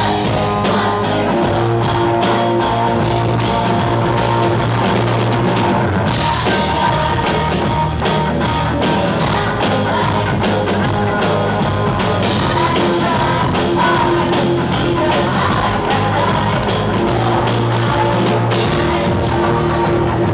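Live rock band playing: electric guitar, drum kit and keyboard, with a man and a woman singing into microphones. The music is loud and steady throughout.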